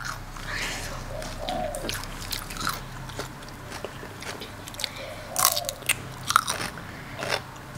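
Close-miked eating: crisp bites into raw cucumber and vegetables, with crunching and chewing, and a few louder crunches in the second half.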